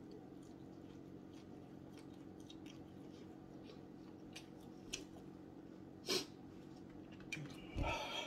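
Faint wet chewing and mouth clicks from someone eating chicken wings, over a steady low hum, with one sharp click about six seconds in and a short louder noise near the end.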